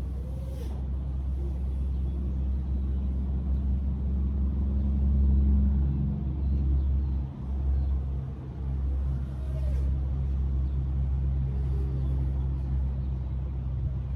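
Strong gusting wind buffeting the microphone: a steady low rumble that swells and briefly drops out about halfway through.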